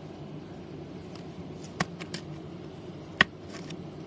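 A few sharp clicks and light taps of trading cards and their packaging being handled, two of them louder, over a steady low room hum.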